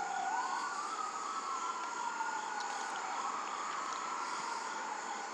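Emergency vehicle siren wailing, two overlapping tones slowly rising and falling in pitch.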